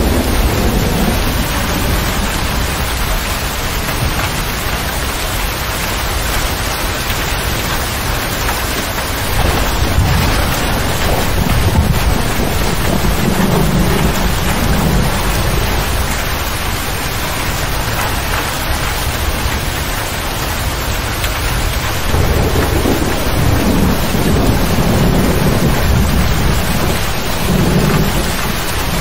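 Steady heavy rain on a motor grader's cab roof and windows, heard from inside the cab. Low rolling thunder rumbles build about ten seconds in and again near the end.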